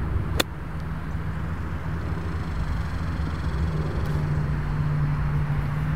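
A 60-degree wedge striking a golf ball: one sharp click about half a second in, then a steady low hum.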